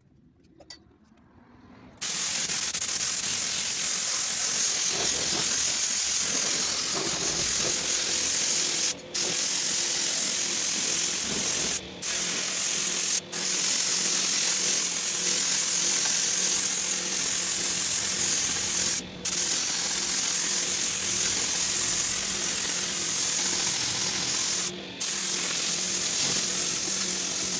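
Gravity-feed compressed-air paint spray gun spraying a thick coat at high pressure: a loud steady hiss that starts about two seconds in and cuts out briefly five times as the trigger is let go and squeezed again.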